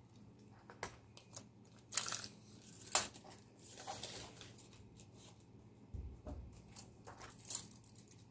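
A tape measure being pulled out and laid across stiff aida cloth: a short rasp about two seconds in, a sharp click a second later, then rustling of the fabric and a few small clicks and taps.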